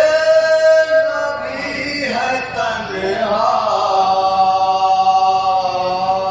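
A group of men chanting a nauha, a Shia Muharram mourning lament, in unison with long drawn-out notes.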